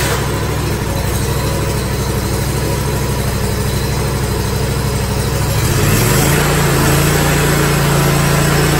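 Bad Boy Outlaw zero-turn mower's engine running at a steady idle just after starting, then throttled up about six seconds in to a higher, steady speed.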